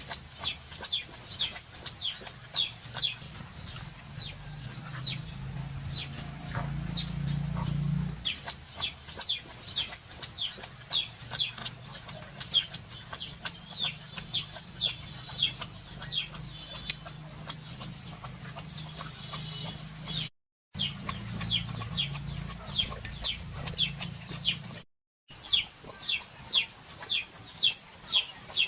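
Rapid series of short, high, falling chirps, about three a second, over a low steady hum; the sound cuts out briefly twice.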